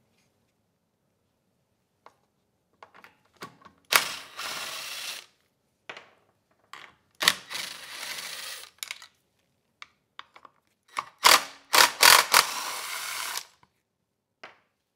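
Cordless drill/driver spinning out the fasteners of a small engine's air-cleaner housing in three short runs of a second or two each, with small handling clicks between them.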